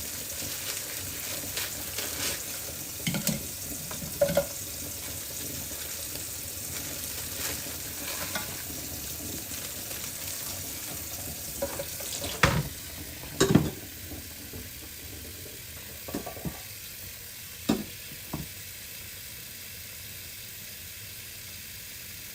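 Food sizzling as it fries in a pan on the stove, with scattered clicks and knocks of a utensil stirring against the pan; two louder knocks come about halfway through.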